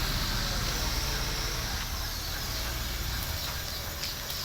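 Bantam chickens faintly clucking over a steady outdoor background hiss.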